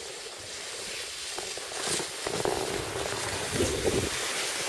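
Skis sliding and scraping over snow, with wind rushing on the microphone; the rushing grows louder about two seconds in.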